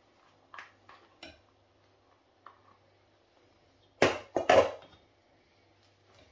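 A few light clicks of a plastic tub being handled over a saucepan, then a cluster of loud metallic knocks about four seconds in as the stainless steel saucepan and its wire whisk are knocked about on the hob.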